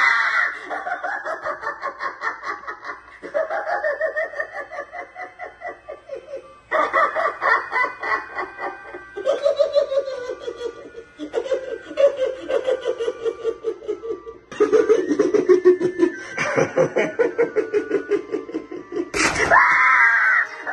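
Spirit Halloween Dagger Mike animatronic clown playing its recorded evil-clown laughter in long runs of rapid cackles with short pauses between them. A sudden loud burst comes near the end as the prop lunges up for its jump scare.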